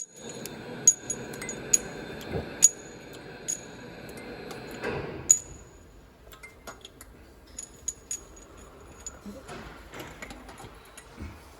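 Metal tools and engine parts clinking as an engine is taken apart: a handful of sharp metallic clinks with a short ring in the first five seconds, then lighter scattered taps.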